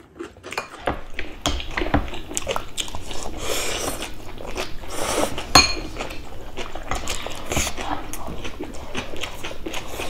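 Close-miked eating: people chewing and biting food, with many small clicks of chopsticks and spoons against ceramic bowls and plates.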